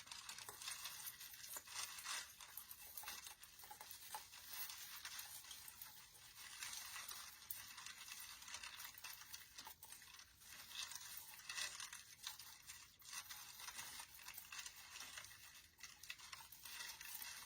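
Faint, irregular rustling and crinkling of artificial pine branches and ornament ball picks being handled and pushed into place.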